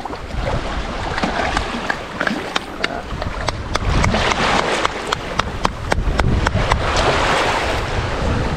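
A run of sharp, irregular taps and knocks on rock oyster shells, as oysters are cracked open on the rocks, over steady wind and lapping water.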